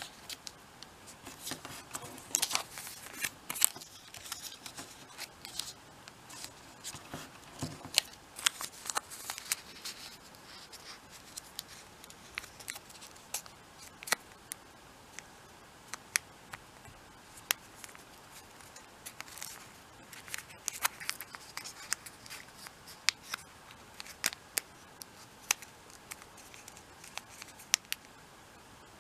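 Origami paper folded and creased by hand: irregular crisp clicks and snaps as the folds are pressed flat, with short stretches of paper rustling.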